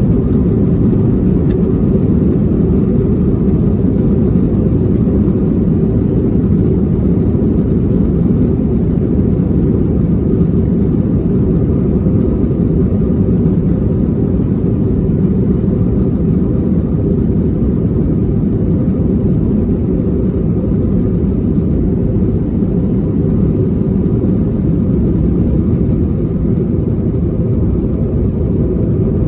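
Steady rumble of an Airbus A321's jet engines and airflow heard inside the passenger cabin, even and unchanging throughout.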